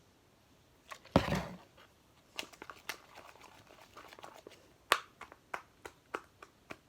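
Homemade slime being kneaded and stretched by hand: after a brief quiet, a loud sticky squelch about a second in, then a string of sharp wet clicks and pops.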